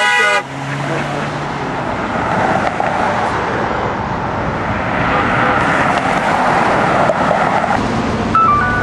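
Traffic passing on a busy multi-lane street, the noise swelling as vehicles go by, with a car horn's honk cutting off just after the start. A few short electronic tones stepping in pitch come near the end.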